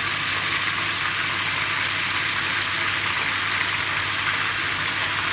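Hot oil sizzling steadily as cut chicken thigh pieces deep-fry in a small pot; the pieces have been put back in to finish cooking because they were still bloody inside.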